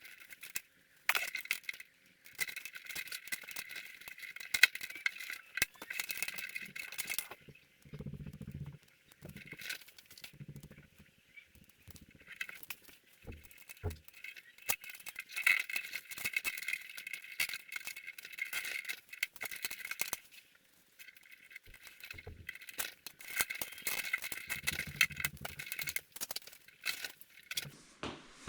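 Rattling and clicking of small parts being handled, in uneven spells with a few soft low knocks.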